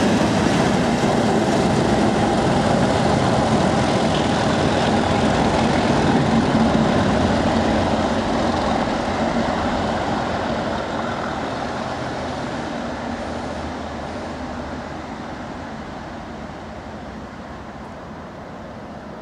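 Pair of Class 37 diesel locomotives, English Electric V12 engines working on full power, passing close with their heavy engine note and wheel noise. The sound fades steadily over the last dozen seconds as the train pulls away.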